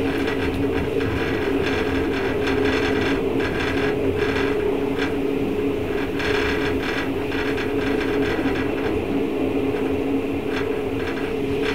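Running noise of the Twilight Express train climbing through a tunnel, heard from inside the carriage: a steady rumble with two steady low tones and irregular light rattles.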